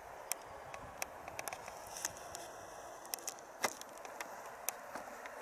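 Faint steady running noise of a train on the line, with scattered sharp irregular clicks and crackles through it, the loudest about three and a half seconds in.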